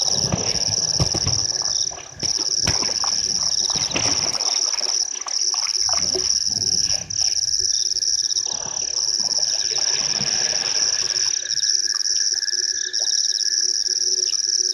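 Night chorus of frogs and insects at a waterhole: a steady, shrill, high-pitched drone with pulsed trilling calls repeating over it. Irregular rustling and crackling come and go, from an elephant bull moving through the dry grass at the water's edge.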